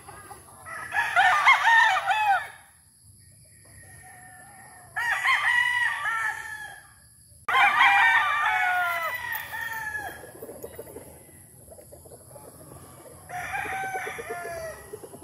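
Gamefowl roosters crowing, four crows in all: one about a second in, two close together in the middle, and a weaker one near the end.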